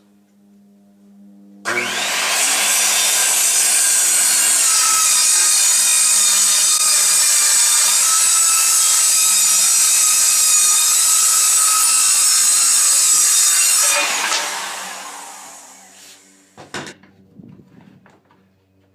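Circular saw starting up about two seconds in and cutting through 3/4-inch plywood at a steady pitch for about twelve seconds. It then spins down after the trigger is released, followed by a brief clatter.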